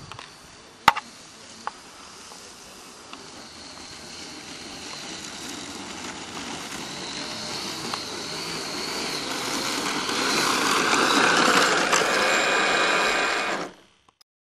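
Multiplex Cargo RC model plane's motor and propeller running as it taxis across grass toward the microphone, growing steadily louder, then cutting off suddenly near the end. A sharp click about a second in.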